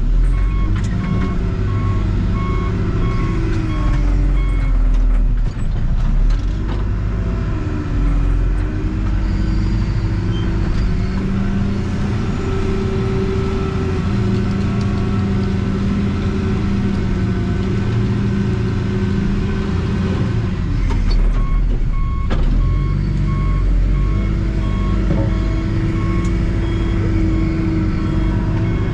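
Backhoe engine running with its revs rising and falling as the machine moves. Its reversing alarm beeps steadily for the first few seconds and again from about two-thirds of the way through.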